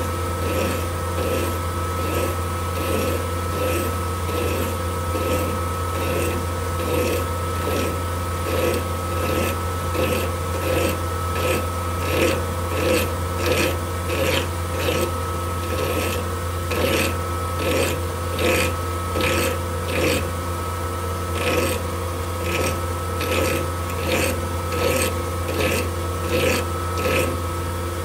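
A hand file rasping against a tungsten disc spinning in a metal lathe, in repeated strokes about two a second, over the lathe's steady running hum.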